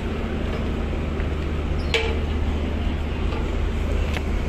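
Steady low drone of a car ferry's engines and machinery, with a single sharp knock about two seconds in.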